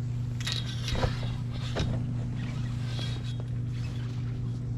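A steady low mechanical hum, with a couple of short sharp knocks about a second in and again near two seconds.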